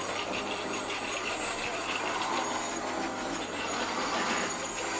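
Electric motor and gear drivetrain of a 3D-printed RC scale crawler running steadily as the truck drives across carpet.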